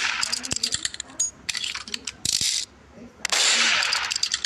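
Repeated bursts of rattling and clicking, with quick clicks running between louder, hissy bursts about every second.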